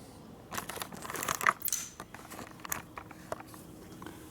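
Small metal parts and hand tools being handled: a run of light clicks, clinks and rustling over the first two seconds, then a few scattered ticks.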